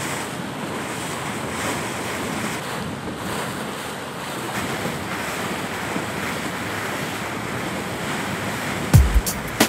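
Water rushing and splashing past a 505 racing dinghy's hull as it planes through chop, with wind buffeting the microphone. About nine seconds in, a heavy music drum beat cuts in.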